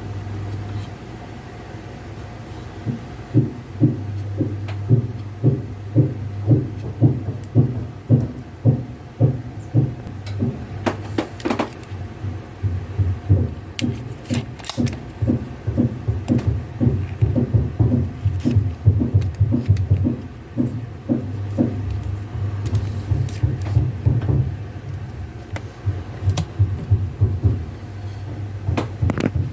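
Zurg robot toy's motor and gear mechanism running with a steady hum and a regular knock about twice a second, starting about three seconds in and stopping near the end.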